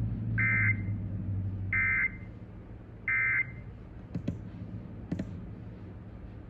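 Emergency Alert System end-of-message data tones: three short bursts of the shrill digital warble, about 1.3 s apart, marking the close of the alert. A low hum and a few sharp clicks follow.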